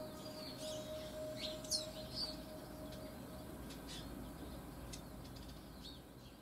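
Small garden birds calling at a feeder: scattered short chirps and quick sweeping tweets, growing fainter toward the end.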